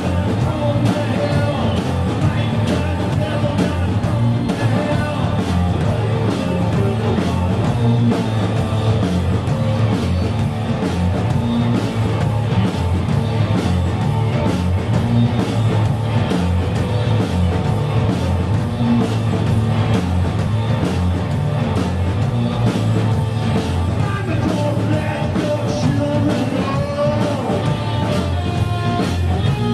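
Rock band playing a song: electric guitar and drums beaten with sticks on floor toms, with a sung lead vocal over them.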